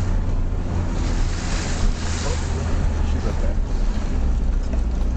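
A vehicle engine running with a steady low hum under a rushing wash of wind on the microphone. The engine note drops slightly about four seconds in.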